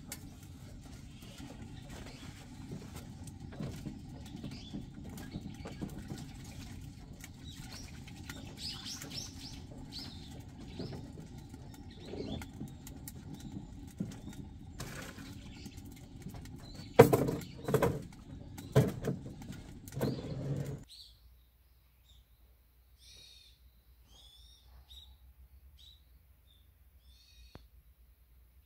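Small birds chirping over a low steady rumble, with several loud thumps a few seconds before the rumble cuts off. After that, only scattered short bird chirps remain.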